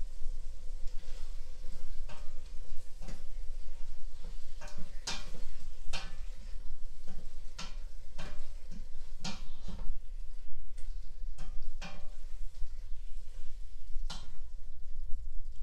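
A spoon stirring a thick soup in a stainless steel pot, knocking and scraping against the pot in a string of irregular clicks, thickest in the middle. A low steady hum runs underneath.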